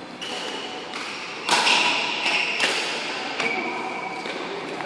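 Badminton rackets striking a shuttlecock: several sharp hits at uneven intervals, the loudest about a second and a half in, each with a short echo from the hall.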